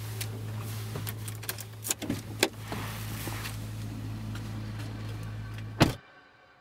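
Steady low hum inside a car, with a few clicks and rustles about two seconds in. Near the end comes a loud thump, and the hum cuts off at once.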